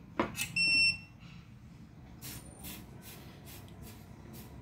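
A single high electronic beep, about half a second long, shortly after a faint click. Later comes a run of short rustling noises.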